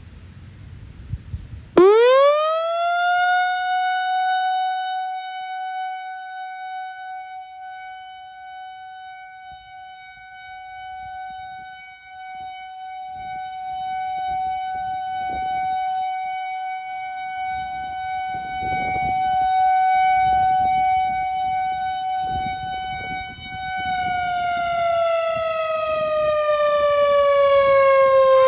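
Whelen WPS 4004 electronic outdoor warning siren sounding its steady alert tone at about 755 Hz: the pitch shoots up about two seconds in, holds steady, then slides slowly down near the end. The sound swells and fades slowly as the rotating speaker array turns toward and away from the listener.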